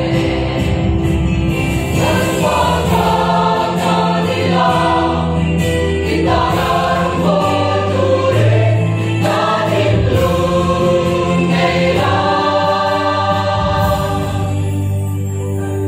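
A mixed choir of women and men singing in harmony, the voices moving together from note to note.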